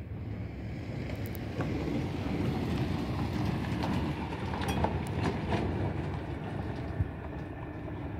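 Toyota pickup truck driving past on dirt ground, its engine and tyres giving a low rumble that is loudest a couple of seconds in and eases as it moves away.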